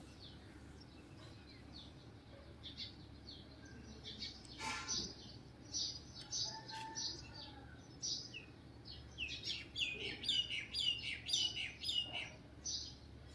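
Small birds chirping: many short high chirps, some sliding downward, coming thicker and louder from about nine seconds in, over a faint steady hum. A brief rustle about four and a half seconds in.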